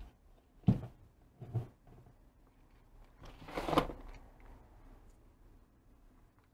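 Handling noises on a workbench as multimeter test leads are moved and set down: a sharp knock under a second in, a smaller knock about a second later, and a short rustle a little past the middle.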